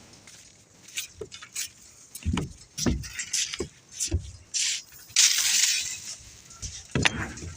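Iron reinforcing rods being handled: irregular metallic clinks and knocks, some with a dull thud, and a couple of short scraping rushes about two thirds of the way through.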